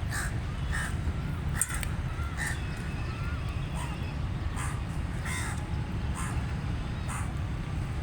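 Crow cawing over and over, short harsh caws about once a second, over a steady low rumble.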